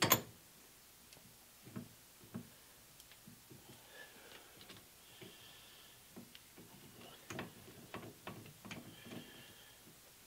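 Light metallic clicks and taps from hands fitting and screwing small pivot pins into a Hardinge lathe collet closer, with one sharper click at the start and faint irregular ticks after it.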